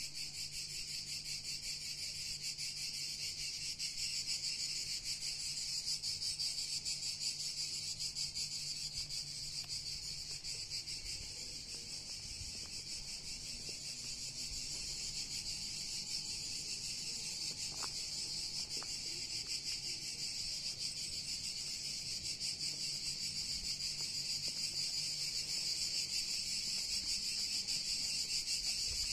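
Steady chorus of insects, a continuous high-pitched rapid buzz that grows a little louder near the end.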